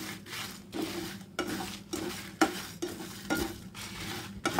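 Plastic slotted spatula stirring coriander seeds and dried red chillies as they roast in a non-stick pan, a rattling scrape with each stroke, about two strokes a second. The coriander is close to the point where it starts to crackle.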